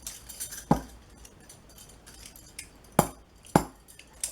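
Steel handcuffs and their key clinking and rattling as someone fumbles to unlock cuffs from their own wrists, with three sharp metallic clicks, about a second in and twice around three seconds in.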